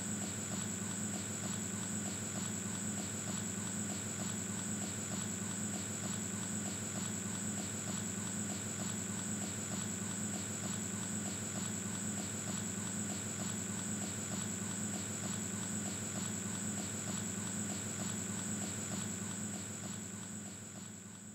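Insects, likely crickets, trilling steadily in a pulsing rhythm over a steady low hum; the sound fades out near the end.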